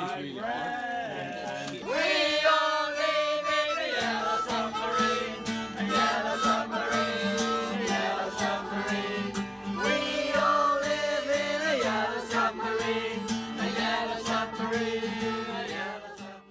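Background music with singing over a steady beat, fading out near the end.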